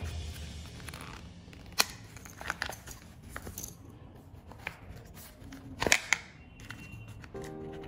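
Cardboard hang tag and leather riding gloves being handled: light rustling with a few sharp clicks, one about two seconds in and two close together about six seconds in, as the tag's press stud and packaging are worked loose.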